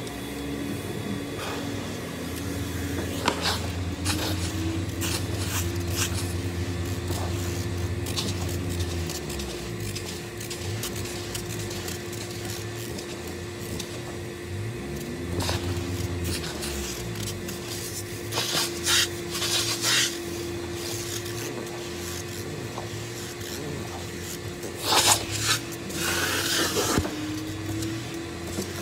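Upholstery extraction wand drawn across a cloth car seat, rasping over the fabric and sucking up moisture, over the steady hum of the extractor's vacuum motor. There are a few louder slurping, hissing passes in the second half.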